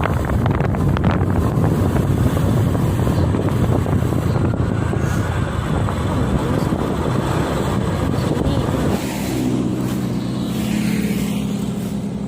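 Truck engine running, with wind buffeting the microphone. About nine seconds in, the rough rumble gives way to a steadier engine hum.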